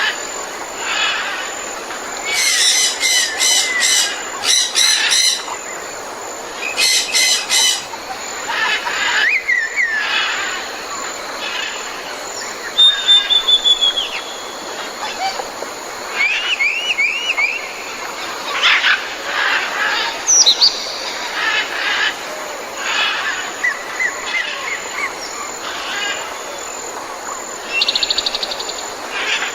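Tropical jungle ambience: many different birds calling and singing over a steady background hiss. Loud rapid pulsed calls come twice in the first eight seconds, with a falling run of notes, repeated looping whistles and a quick trill later on.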